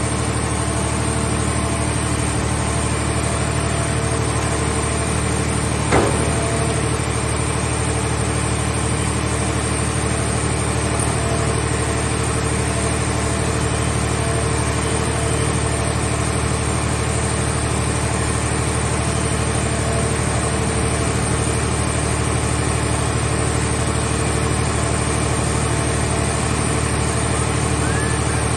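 The power unit of a car-shell baling and compressing machine running at a steady drone, with one sharp knock about six seconds in.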